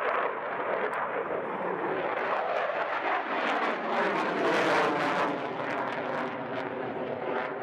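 Jet noise from a Belgian Air Force F-16's Pratt & Whitney F100 turbofan as the fighter flies a display manoeuvre overhead: a steady rushing rumble that swells a little past halfway through and then eases.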